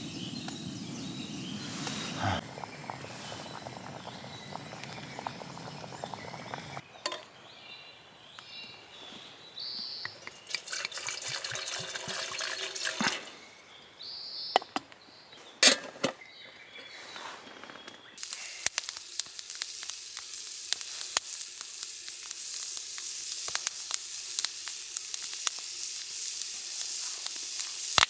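Sizzling and crackling of cooking over a campfire, in pieces that change abruptly about 7 and 18 seconds in, with a sharp knock about two-thirds of the way through. A steady high sizzle with small crackles fills the last third.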